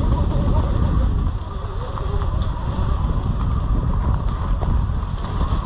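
Sur-Ron electric dirt bike riding along a trail: the motor's whine wavers up and down in pitch with the throttle, over a steady rumble of wind and jolting on the camera mic.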